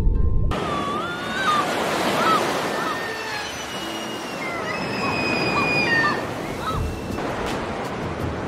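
Water noise like gentle surf with many short, thin whistled bird calls over it, some rising and some falling. About seven seconds in, this gives way to a low rumble with a few sharp clicks.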